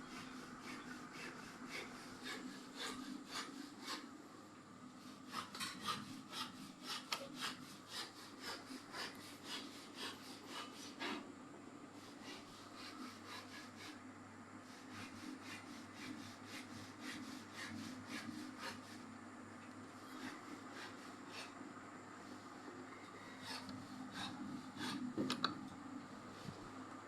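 Ceiling fan running with a steady hum. Irregular clicking and scraping sounds lie over it, thickest in a run early on and again near the end.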